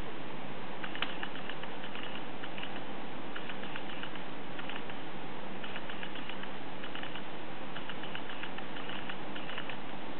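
Hermit crab feeding: clusters of small irregular clicks and scratches over a steady recording hiss.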